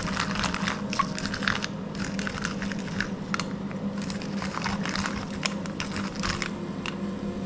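Wooden pepper mill being twisted by hand, grinding peppercorns in short runs of dry crunching clicks, with a steady low hum behind.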